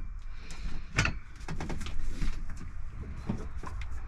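Scattered knocks and clunks against a van's sliding door as a window is fitted into it, the sharpest about a second in, over a steady low rumble.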